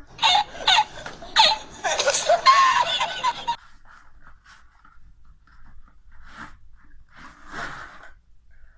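A man laughing hard, several loud bursts of laughter over about three and a half seconds. After that, quieter rustling and handling noises as a monopod is unwrapped from its packaging.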